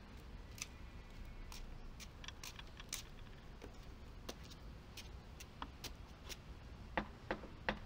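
Footsteps on a pavement, heard as scattered light clicks. Near the end come a few sharper clicks of a key and lock at a front door.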